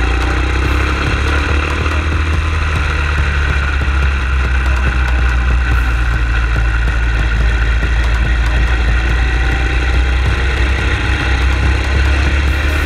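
A vehicle's engine running at steady speed with a constant low rumble, heard from a camera mounted on the outside of the moving vehicle. The engine pitch drifts slowly up and down.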